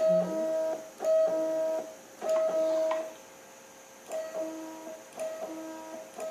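3D printer stepper motors whining at fixed pitches during short repeated head moves, about once a second. A higher tone is followed by a lower one an octave down, each starting with a click and stopping abruptly. The moves get quieter about four seconds in.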